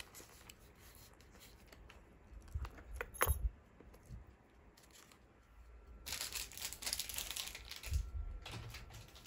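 Small-object handling: a few light metallic clicks and clinks, then from about six seconds in a dense crinkling rustle of packaging being handled.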